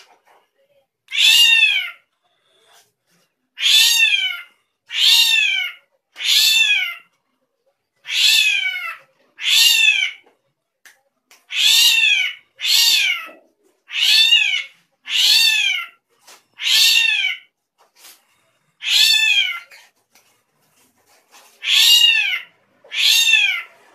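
Drongo (srigunting krantil) calling over and over: about fourteen short, high calls that each rise and then fall, spaced roughly a second apart with a longer pause in the latter half. This is the bird's strange call.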